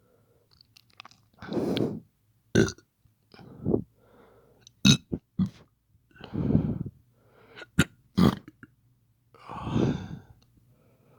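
A person's put-on burps and hiccups: four drawn-out low burps a few seconds apart, with short sharp hiccup clicks between them.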